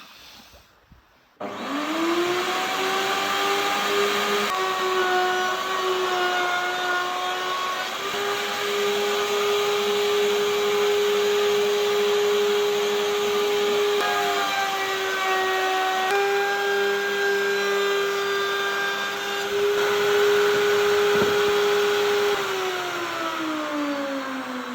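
Electric power tool motor starting up with a rising whine, running steadily with brief pitch drops as it takes load, then spinning down with a falling whine near the end.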